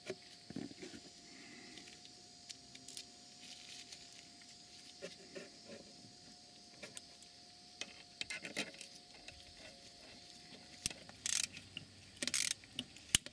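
Small metal parts clinking and tapping as a brake hose's banjo bolt and washers are fitted to a brake caliper, then a socket ratchet clicking in short runs near the end as the bolt is tightened.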